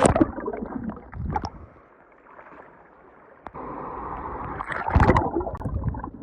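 Water splashing and sloshing close to the microphone, with several loud knocks and thumps on it, near the start, after about a second, and again around five seconds in.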